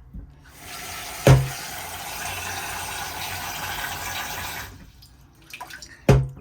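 Tap water running into a cooking pot of peeled potatoes, filling it for about four seconds before the tap shuts off. A sharp knock comes about a second in and another near the end.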